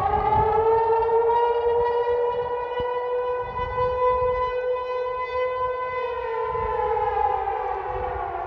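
Civil defence warning siren wailing: its pitch rises over the first second or so, holds steady for several seconds, then slides down through the last part.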